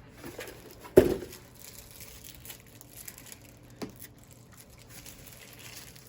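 Gift packaging rustling and crinkling as items are taken out of a box, with one sharp knock about a second in and a lighter one near four seconds.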